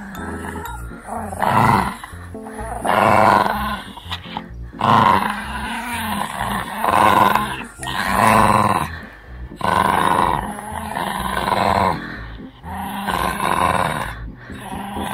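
Shih Tzu puppy growling in repeated bouts every second or two while tugging on a braided rope toy: a play growl during tug-of-war, not real aggression.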